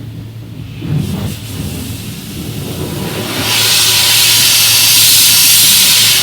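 Water spraying onto a truck during a wash: a light hiss that swells into a loud, strong spray hiss about three and a half seconds in, over a steady low hum.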